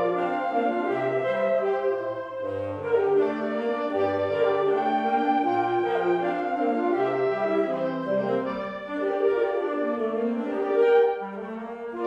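Woodwind ensemble of flutes, clarinets, bass clarinet, saxophones and bassoons playing held chords over a moving bass line. The low part drops out about eight and a half seconds in and returns higher near the end.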